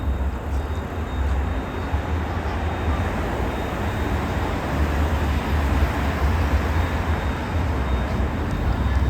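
Steady low rumble and hiss of city traffic noise.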